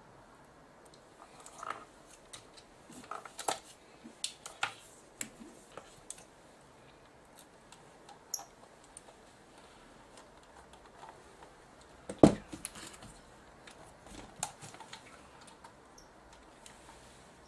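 Scattered small clicks and taps of a JVC GY-HD201E camcorder's body being handled and its casing screwed back together, with one louder knock about twelve seconds in.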